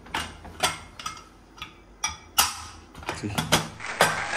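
Aluminium pressure cooker being opened: a run of sharp metal clicks and clanks as the lid is twisted loose and lifted off the pot, once the cooker has finished its whistles.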